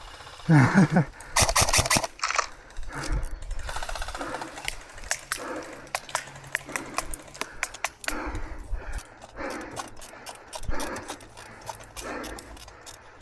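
A dog barking repeatedly, about once a second, after a falling yelp about half a second in, with many sharp clicks scattered throughout.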